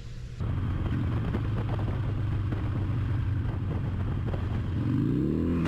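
Motorcycle engine running steadily, with a low engine note and road or wind noise. Near the end its pitch rises as the bike accelerates.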